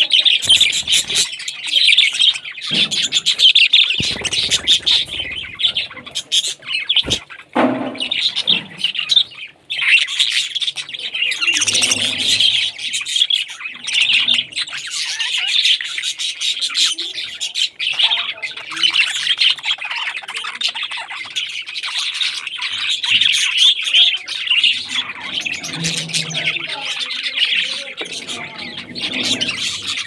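A group of budgerigars chattering and chirping without a break, many birds twittering at once.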